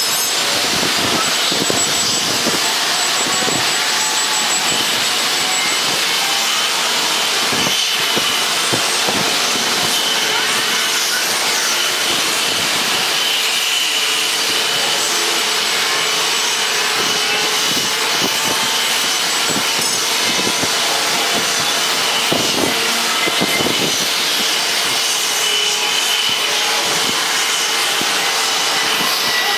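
Steady jet aircraft noise: a constant rushing hiss with a steady whine over it, holding one level throughout.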